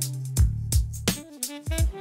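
Instrumental background music with a drum beat and a bass line.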